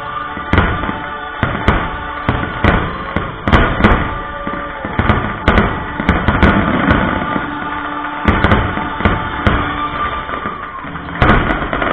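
Aerial fireworks shells bursting in an irregular string of sharp bangs, one or two a second, with a heavier cluster near the end. Loud show music with held chords plays underneath.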